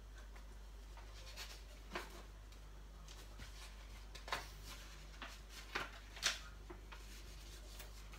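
Pages of a colouring book being turned by hand: a few short paper rustles and flaps, the loudest about six seconds in.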